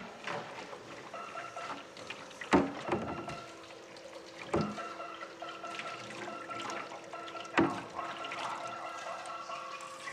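Washing up in a stainless-steel kitchen sink: water running with pots and dishes clattering, three louder knocks standing out at about two and a half, four and a half and seven and a half seconds in.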